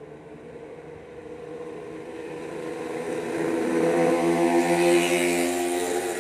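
A motor vehicle's engine, unseen, growing steadily louder over the first few seconds and then running loud and steady with a low hum and a hiss above it.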